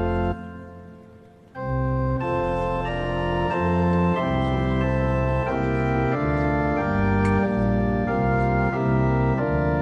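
Church pipe organ playing sustained chords. It breaks off about a third of a second in and the sound dies away in the church's echo, then comes back about a second and a half in with a new chord and plays on through a run of changing chords.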